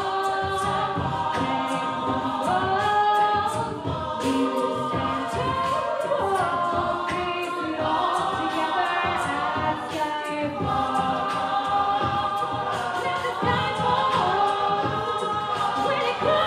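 An a cappella vocal group singing in harmony, several voices at once with no instruments, over a steady beat.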